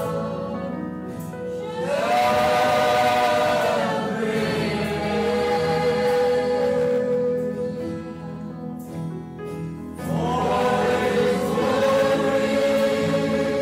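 Choir singing slow sacred music in long held notes, with new phrases swelling in at about two seconds and again at about ten seconds.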